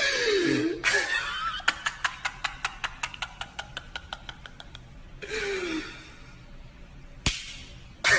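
A man laughing loudly in bursts, with a steady fast ticking of about five ticks a second underneath and a single sharp click near the end.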